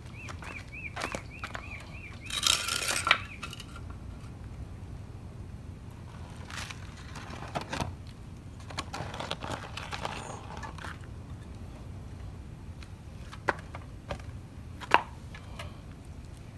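Handling noises from work on a lawn edger's oil drain: scattered clinks, knocks and scrapes of tools and a plastic oil drain pan on concrete. There is a longer scrape about two and a half seconds in and two sharp clicks near the end.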